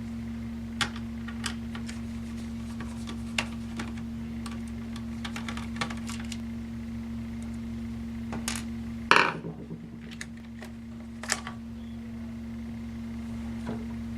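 Scattered small clicks and taps of laptop parts, screws and a screwdriver being handled during disassembly, with one louder clatter about nine seconds in and a smaller one about two seconds later, over a steady electrical hum.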